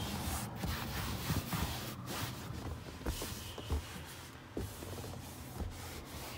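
Faint rubbing and scattered small knocks and clicks from a hand-held phone being moved about against the car's seats, over a low uneven rumble.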